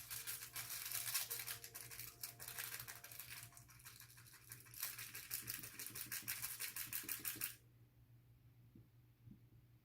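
A small battery-powered motor in a cat fish toy buzzing with a fast rattle, stopping suddenly about seven and a half seconds in.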